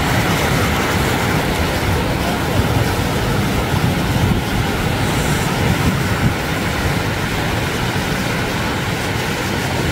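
Steady rush of sea surf mixed with wind buffeting the microphone, with no clear tones or breaks.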